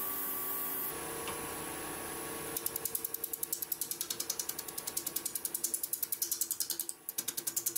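Wood lathe running with a bowl blank spinning. From about two and a half seconds in, a freshly ground 40/40 bowl gouge cuts into the wood with a rapid, even ticking that breaks off briefly near the end.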